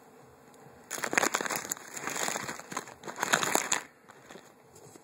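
Plastic packaging crinkling and rustling as the case's accessories are packed back into it, in two stretches starting about a second in and stopping a little before the end, with a few light clicks.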